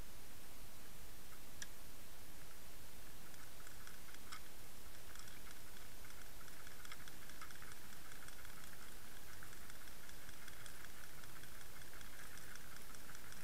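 Underwater audio from a camera towed on a trolling line: a steady hiss with scattered sharp ticks and a fine crackling that grows denser about five seconds in.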